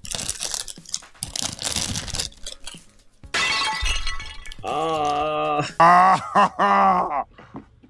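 A foil wrapper crinkling as it is unwrapped close to the microphone. A little over three seconds in there is a sudden burst of noise, then a man's voice in long drawn-out exclamations.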